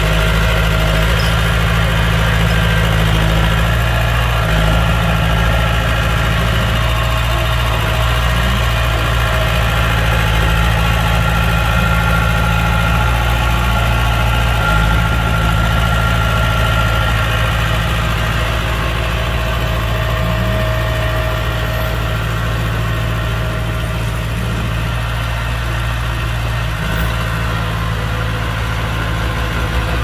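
Heavy diesel engine of earthmoving machinery running steadily near idle, with a few brief small rises in revs.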